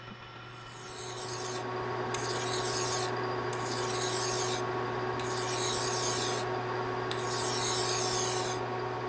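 Hand file dressing the spray-welded buildup on a shaft turning in a lathe: five scraping strokes of about a second each, over the steady hum of the running lathe. This is the hand-finishing of a spray-weld journal repair after it has been turned to size.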